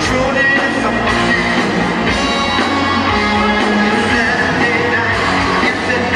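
Live rock band playing, with a male lead singer's voice over it, amplified through the hall's sound system.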